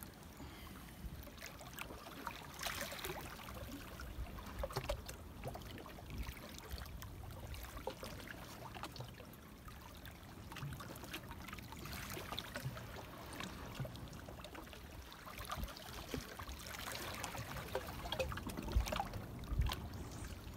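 Small waves lapping and splashing against the rocks of a breakwater, with scattered light clicks throughout and two low thumps near the end.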